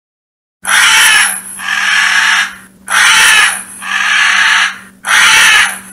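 A porcupine's call: six harsh, noisy bursts in pairs, each under a second long, over a steady low hum.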